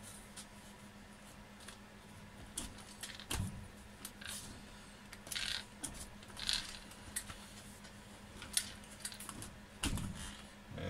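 Scattered clicks, knocks and light rattles of a 1/10-scale nitro RC short-course truck being handled and turned over on a workbench, with a dull thump about three seconds in and again near the end. The engine is not running.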